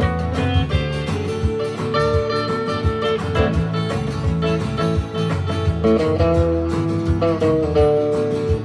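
Live instrumental music from acoustic guitars, strummed and picked in a steady rhythm over a low bass line, with long held notes sounding above.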